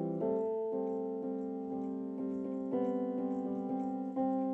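Background music: soft piano chords struck about twice a second, moving to a new chord shortly after the start and again near three seconds in, with no singing.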